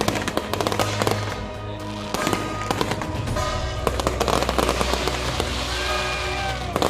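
Aerial fireworks bursting overhead in a rapid, dense series of crackles and pops, with a louder bang near the end. Music with held notes plays underneath.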